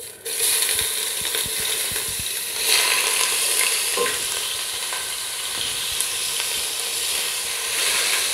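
Garlic-ginger paste sizzling in hot oil in a metal pot, the sizzle starting suddenly as the paste goes in and holding steady as it is sautéed. A few light knocks in the first couple of seconds come from the ladle and spatula against the pot while it is stirred.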